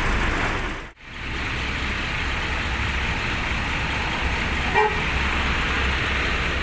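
Road traffic noise with a bus engine running as a coach approaches, and one short vehicle horn beep just under five seconds in. The sound drops out for an instant about a second in at an edit cut.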